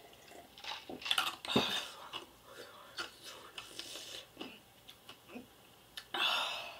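Quiet chewing of a bite of raw onion, with scattered crunches and mouth clicks. A short breathy noise comes near the end.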